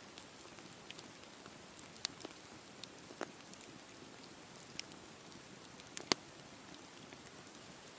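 Campfire crackling: a steady soft hiss with scattered sharp pops, the loudest about six seconds in.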